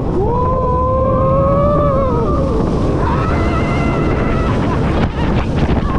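Riders on a Bolliger & Mabillard flying roller coaster screaming over the steady rush of wind and the train's rumble on the track. One long, gliding scream fills the first couple of seconds, and a second, higher one comes near the middle.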